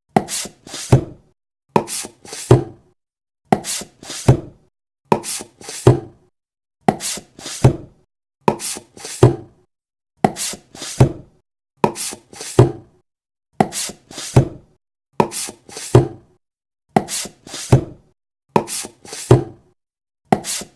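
Rhythmic knocking: a pair of sharp knocks, the second one heavier, repeating steadily a little under every two seconds.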